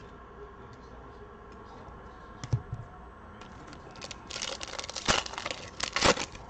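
Foil wrapper of a Prizm basketball card pack being torn open and crinkled, starting about four seconds in, after a single knock about halfway through.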